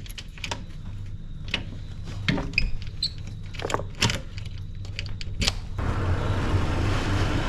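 Scattered clicks and knocks of gear being handled, over a steady low hum from a vehicle. About six seconds in, a broad hiss rises and holds.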